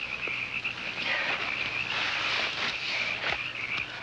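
Night chorus of frogs, a steady high-pitched trilling that swells a little about a second in, with a couple of soft knocks.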